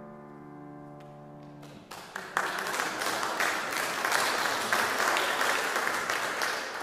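The last chord of a grand piano dies away, and then, about two seconds in, audience applause breaks out and carries on to the end.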